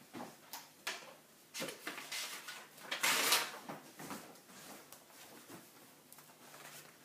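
A sheet of scratch paper being fetched and handled: rustling with a few light knocks, and one louder, longer rustle about three seconds in.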